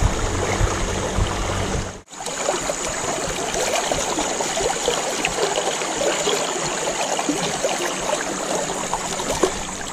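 Shallow river water rushing and rippling steadily over rocks close around the wader, with a brief gap in the sound about two seconds in.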